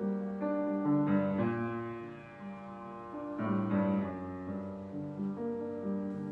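Background piano music, slow sustained chords changing every second or so.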